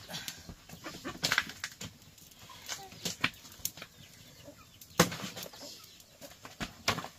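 A series of irregular sharp knocks and taps, the loudest about five seconds in, with chickens clucking faintly between them.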